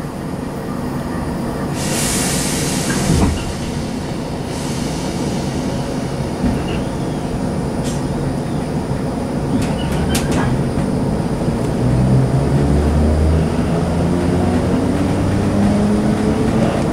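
Inside a Southern Class 455 electric multiple unit on the move: a steady rumble of wheels on rail, getting slowly louder. There is a brief hiss about two seconds in, and near the end the traction motors give a whine that rises in pitch as the train picks up speed.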